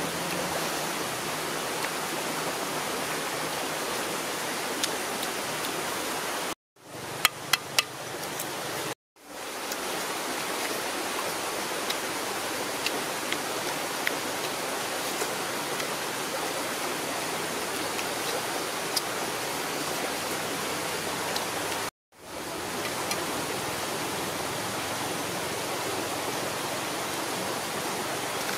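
Steady, even rushing hiss that cuts off abruptly to silence three times, fading back in each time. A quick run of four sharp clicks comes about seven seconds in.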